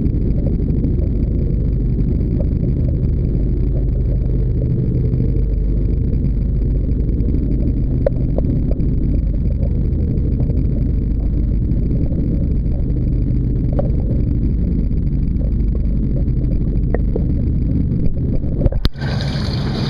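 Muffled, steady low rumble of water in a sardine bait tank, heard through a camera held underwater, with a few faint ticks. About a second before the end a sharp knock marks the camera breaking the surface, and the sound opens up into brighter air noise.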